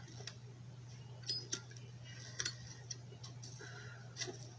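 Faint, irregular ticks and clicks, about two a second, over a steady low hum.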